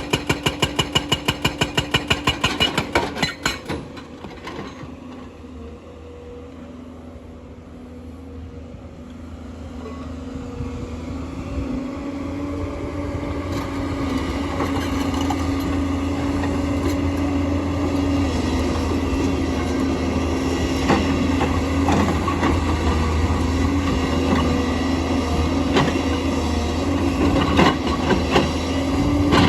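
JCB excavator's hydraulic rock breaker hammering, several blows a second, stopping three to four seconds in. The excavator's diesel engine then runs on with a steady hum that grows louder from about ten seconds in.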